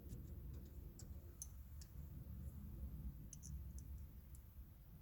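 Faint, irregular light clicks and ticks from hand tools and parts being handled, over a low steady rumble.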